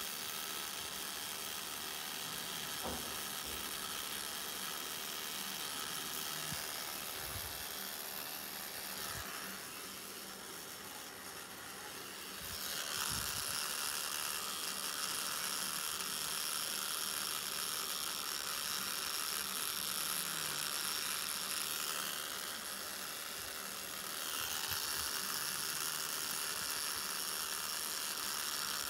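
Tattoo machine running with a steady high whirring buzz as its needle lines a band tattoo on the skin. It drops quieter twice for a couple of seconds, about a third of the way in and again about three quarters of the way through.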